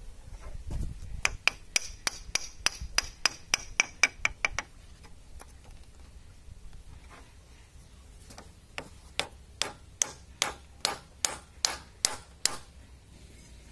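A small hammer tapping at the handle fitting of an antique two-man crosscut saw through a wooden block. A quick run of about fifteen strikes with a metallic ring comes first, then a pause, then about ten slower strikes.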